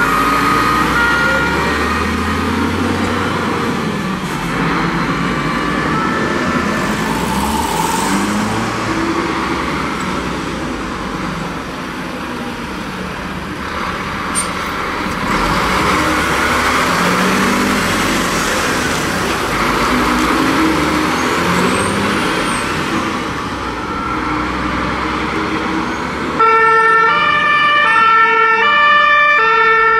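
German fire-engine two-tone sirens (Martinshorn), several horns at different pitches sounding over the heavy rumble of the trucks' diesel engines as the vehicles pull away. Near the end the sound jumps louder, and one close two-tone horn alternates steadily between its two notes.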